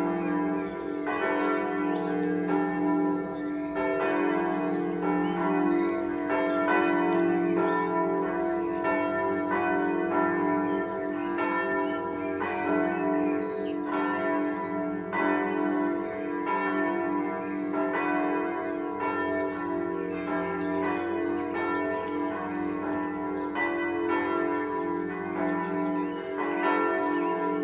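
A peal of several church bells ringing together, their strokes overlapping about once a second over a continuous hum: the daily evening ringing of the Südkirche bells.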